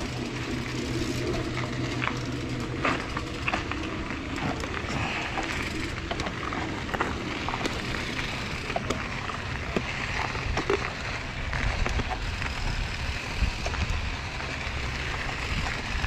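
Mountain bike rolling over a rocky dirt trail: tyres crunching on gravel, with many scattered clicks and rattles over a steady low rumble.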